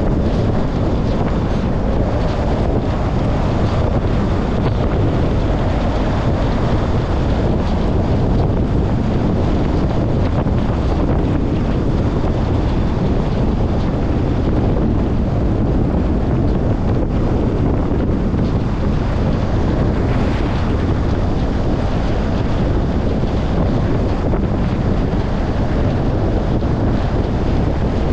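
Steady rushing wind and road noise of a car being driven, deep and unbroken.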